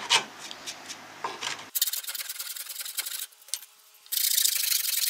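Hand file rasping along the edge of a wooden guitar neck, shaping it. The strokes are fainter at first, then come as two longer, brighter scraping passes with a short pause between them.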